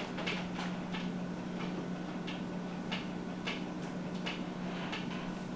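Irregular light clicks, about two a second, as long tweezers pick and pull moss packing out of a small clear shipping vial, over a steady low hum.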